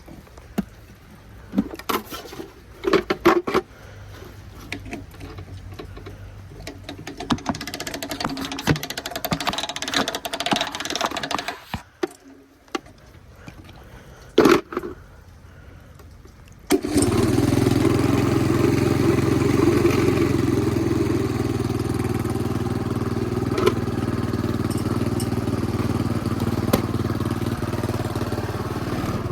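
Small motorbike engine being started: scattered knocks and clatter, then about two-thirds of the way through it catches suddenly and runs steadily.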